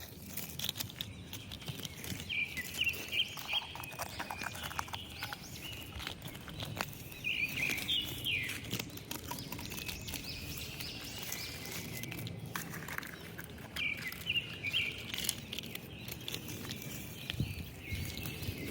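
Outdoor ambience with small birds chirping in short bursts now and then, over a faint background hiss and scattered light clicks.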